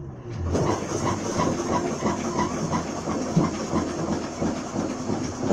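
Steam engine aboard the 1903 steamship Daniel Adamson running under way, a hissing chuff beating just under three times a second, starting about half a second in.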